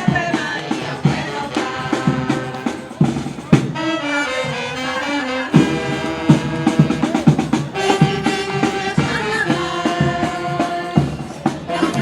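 A bloco lírico's carnival orchestra playing a march-time frevo de bloco, with regular drum beats under melodic instruments and sung voices.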